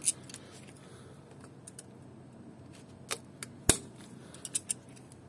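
Scattered sharp clicks and clinks of hand tools and metal parts being handled at an engine's thermostat housing, with one louder knock about three and a half seconds in.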